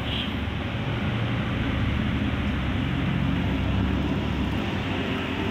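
A motor vehicle's engine rumbling, swelling a little louder in the middle and easing off again, over a steady hum of traffic.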